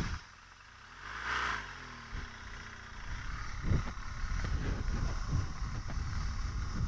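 BMW R1200GS boxer-twin engine revving as the motorcycle pulls away from a stop about a second in, its pitch rising. It then runs at low speed over a dirt track, with a few knocks and clatter.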